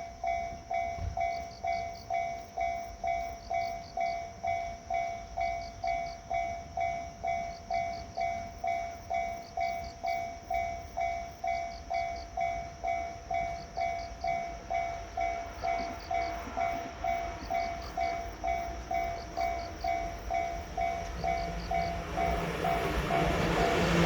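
Japanese level-crossing warning bell ringing steadily at about two electronic dings a second. Near the end a Shinano Railway 115 series electric train's rumble rises beneath it as the train approaches.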